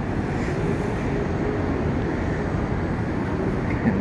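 Steady downtown traffic noise: an even, low rumble of city streets with no distinct events.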